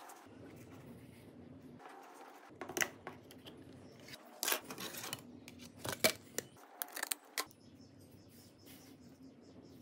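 Plastic back cover of a Samsung Galaxy phone being pried off by fingernail: a series of sharp plastic clicks and snaps as its clips let go, in clusters between about three and seven seconds in, the loudest near six seconds.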